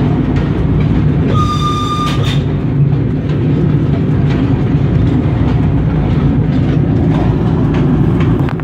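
Freight train hauled by a VL10 electric locomotive, heard from inside the cab: a steady low rumble with wheels clicking over the rail joints. A short, high whistle-like tone sounds about a second and a half in.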